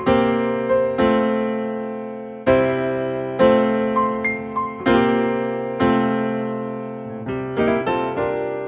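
Background piano music: slow chords struck about once a second and left to ring out, with quicker notes near the end.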